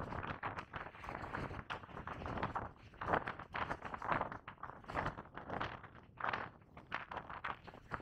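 A person's footsteps at a steady walking pace, about two steps a second, over a low steady background rush.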